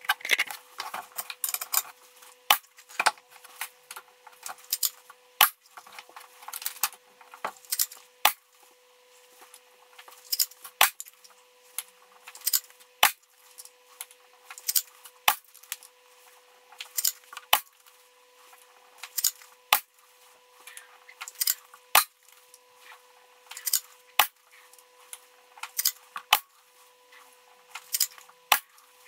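A Weihrauch HW100 PCP air rifle fired about a dozen times through a chronograph, one sharp shot every two seconds or so, with lighter metallic clicks between shots as the action is cycled to load the next pellet. A faint steady hum runs underneath.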